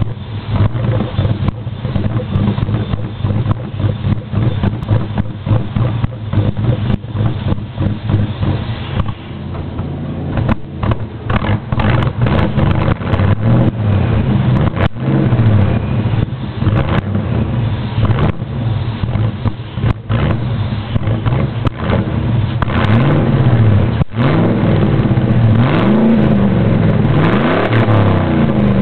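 2001 Ford F-150's 4.6L V8 running straight through the exhaust with no muffler, loud. It idles for the first dozen seconds, then is revved again and again through the second half, the pitch climbing and falling with each rev.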